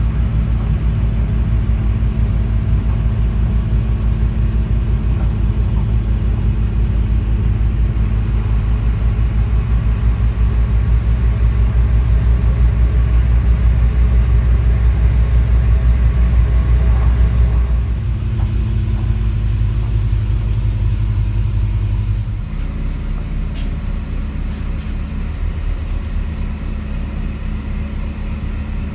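A diesel multiple unit's engine running under power, heard from inside the carriage as a loud, steady low hum, with a faint high whine that rises and then holds. About 18 s in the engine note drops, and it drops again a few seconds later as the train slows into a station. One sharp click follows soon after.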